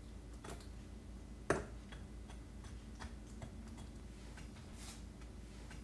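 Tip of a kitchen knife pricking small cuts through raw chicken skin and striking the cutting board beneath: a few scattered light ticks, the clearest about a second and a half in.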